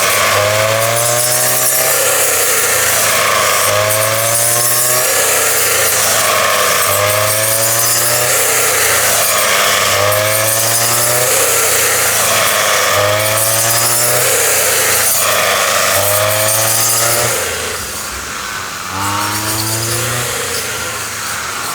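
Small motor-driven rice threshing machine running, its pitch rising and falling in a regular cycle about every second and a half. It gets quieter near the end.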